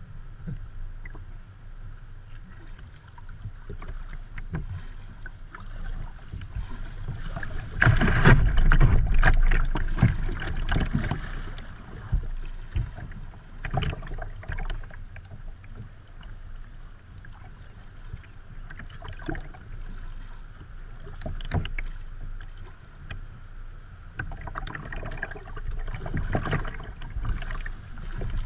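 Kayak paddling heard from the kayak's deck: irregular splashes of paddle strokes and water lapping against the hull. The splashing is louder about eight to eleven seconds in and again near the end.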